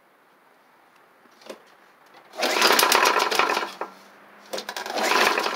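Tecumseh engine of a Snapper Hi Vac push mower pulled over twice on its recoil starter, each pull a rapid clatter of about a second and a half. The engine nearly catches but does not keep running.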